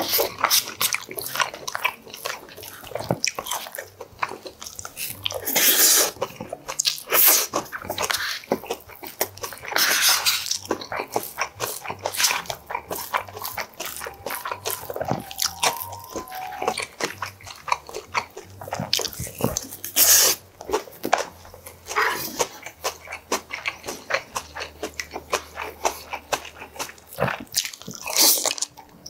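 Close-miked eating of cockle bibimbap and kimchi: steady chewing with many small mouth clicks, and a few louder bursts spread through.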